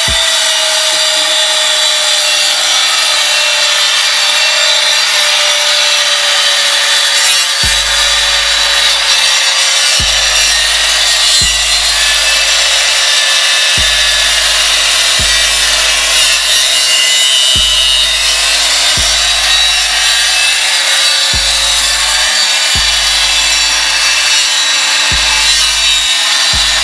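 Angle grinder running continuously against steel truck parts, a steady harsh grinding with a whine that slowly drops in pitch. Background music with a regular bass beat comes in underneath about a third of the way through.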